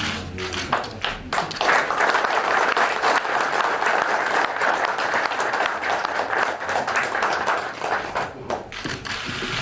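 Applause from a roomful of guests, swelling about a second and a half in and thinning out near the end.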